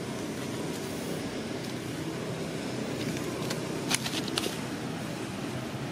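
Steady rushing outdoor background noise, with a short cluster of sharp clicks about four seconds in.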